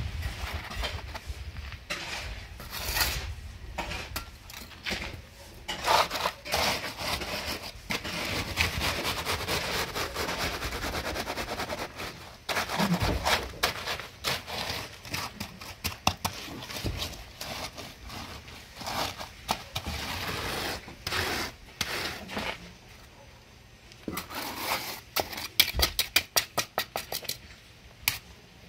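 Wooden hand float scraping and smoothing wet concrete on a stair step, with scattered knocks of the tools and a fast run of sharp taps near the end.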